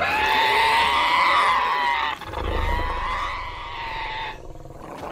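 Cartoon sound-effect call of an infected Parasaurolophus: one long pitched cry with many overtones that bends gently up and down. About two seconds in it drops in loudness, with a low rumble beneath, and it breaks off near the end.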